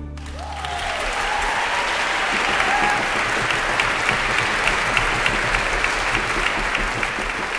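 Concert-hall audience applauding at the end of a violin concerto performance, a dense, steady clapping. A few voices call out over it in the first three seconds.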